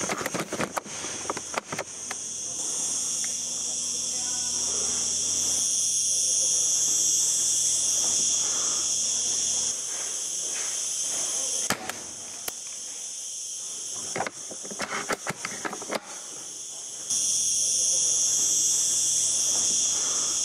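Insects chirring steadily in a high, continuous drone, with scattered sharp clicks and knocks over it, a cluster near the start and another a little past the middle.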